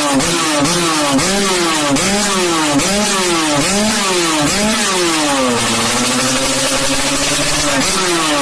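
Two-stroke motocross bike engine revved in a string of quick throttle blips, each a short rise and fall in pitch, then dropping to a steady idle about five and a half seconds in before blipping again near the end.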